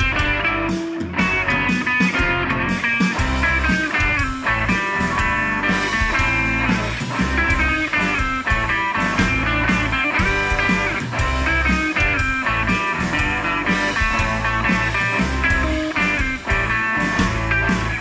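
Background rock music led by electric guitar, with a steady beat.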